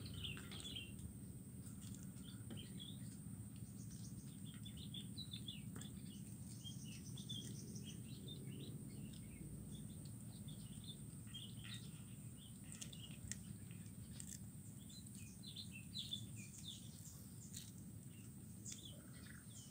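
Small birds chirping over and over in short, scattered calls, with a few faint sharp clicks now and then as cats chew fish bones. A steady high hiss runs beneath.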